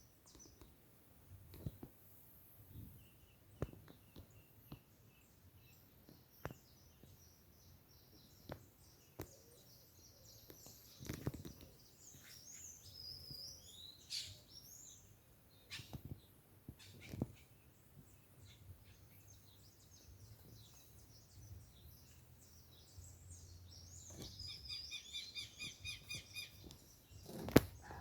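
Birds chirping and calling in short, quick notes, with a fast run of repeated chirps a few seconds before the end. Scattered sharp clicks or knocks run through it, the loudest just before the end.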